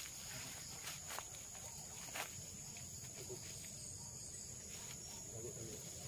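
Insects chirring in one steady high-pitched tone, with a few faint clicks in the first couple of seconds.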